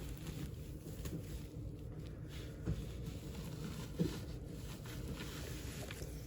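Low wind rumble on the microphone with faint scraping from hands digging gently through soil, and a couple of soft knocks.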